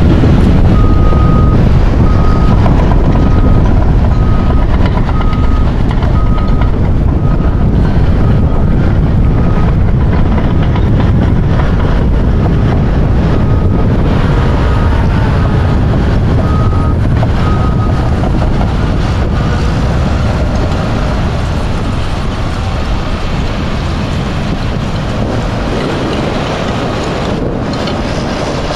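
Strong wind buffeting the microphone over heavy storm surf breaking on the shore. A string of short, high beeps, about one a second, runs through the first half, pauses briefly, and comes back for a few more.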